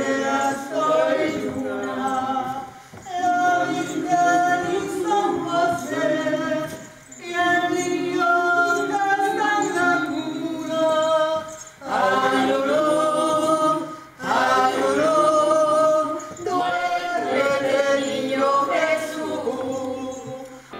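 Unaccompanied ensemble singing, several voices together in phrases, with short breaks between phrases.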